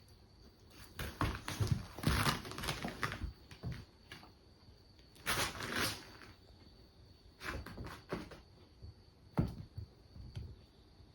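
Rustling, scuffling and soft thumps of a kitten and a dog playing together, coming in irregular bursts with short pauses between them.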